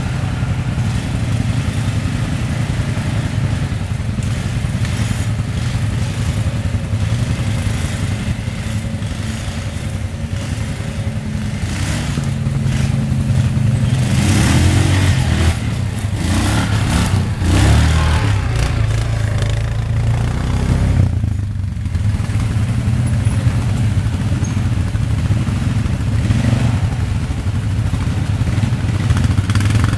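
Quad (ATV) engine running steadily while driving off-road. It revs up and gets louder for several seconds around the middle, then drops back briefly before settling again, with some clatter over it.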